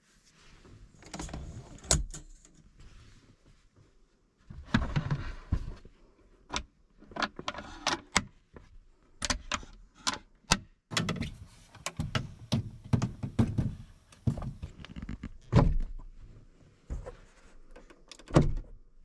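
Gear being handled inside a car cabin while the bed is set up: an uneven run of clicks, knocks and rustles, with a few heavier thuds, the loudest near the end.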